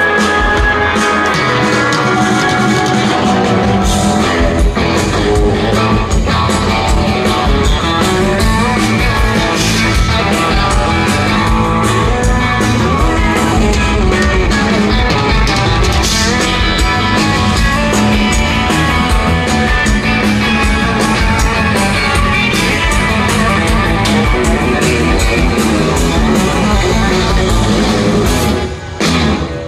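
Live band playing loud country rock, with electric guitar and drum kit, heard from the audience. The sound dips briefly near the end.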